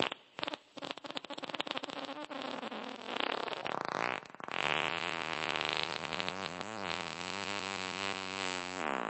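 A long, drawn-out fart: a rapid spluttering rattle for the first few seconds, then a pitched tone that wavers up and down, stopping at the end.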